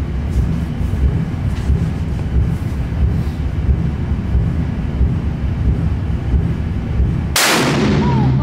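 A steady low rumble, then about seven seconds in a single loud .416 Rigby rifle shot that echoes off the concrete walls of the indoor range lane for about a second.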